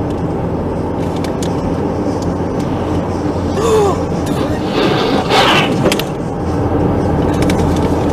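Steady engine and road noise inside a moving car's cabin. About five seconds in there is a brief, louder noisy burst.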